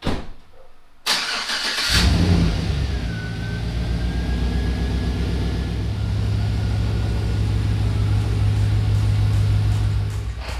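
Chevrolet Silverado pickup with a Borla XR-1 exhaust being started: a sharp thump, then about a second of cranking before the engine catches with a brief flare and settles into a steady idle. The idle fades out near the end.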